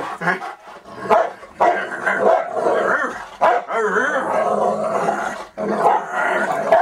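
Dogs play-growling and barking while roughhousing: a near-continuous run of growls broken by short, louder barks.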